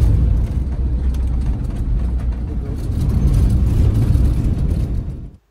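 Camper van on the move: a steady, loud low rumble of engine and road noise, which cuts off suddenly near the end.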